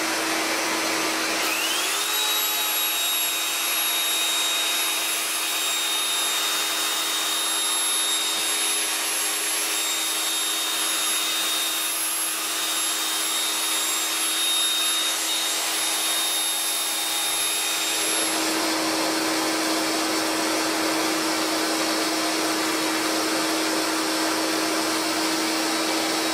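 Dust extractor running with a steady rush of air. About two seconds in, an electric polisher fitted with a sanding pad spins up with a rising whine and runs steadily against a spinning ash blank on a wood lathe, cutting off a little past two-thirds of the way through.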